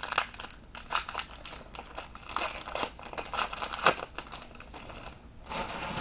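Crinkling and tearing of a trading card pack wrapper as it is torn open, an irregular run of papery crackles and rustles.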